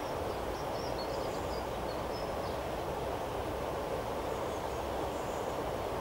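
A steady, even rushing noise, with a few faint high bird chirps during the first couple of seconds.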